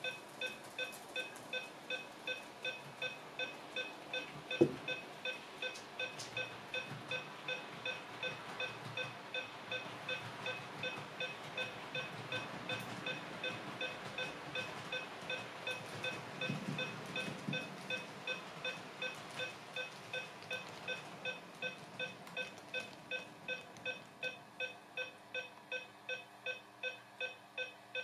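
Electronic beeping from the PIKO ICE 4 model's sound decoder: an even beep repeating about twice a second, with one sharp click about four and a half seconds in.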